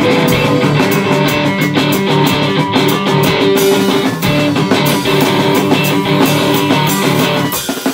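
Live rock band playing: electric guitar chords over drums with rapid, regular cymbal hits, and a short break in the sound near the end.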